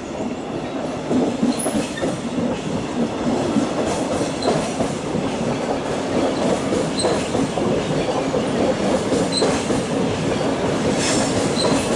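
Double-deck regional express train rolling past: a steady rumble of wheels on rail that grows louder, with scattered brief high wheel squeals and a few rail-joint clicks near the end.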